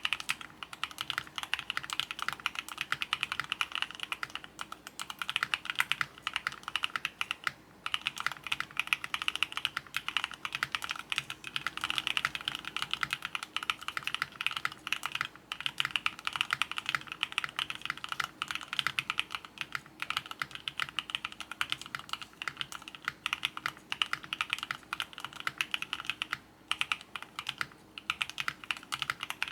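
Fast typing on a Qwertykeys Neo65 mechanical keyboard fitted with CIDOO Matte linear switches: a dense, steady run of keystrokes, broken by a couple of brief pauses.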